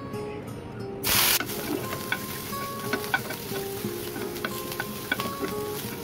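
Sliced onion and garlic going into hot oil in a frying pan, with a loud, short burst of sizzle about a second in. Then steady sizzling, with a utensil clicking and scraping against the pan as the pieces are stirred.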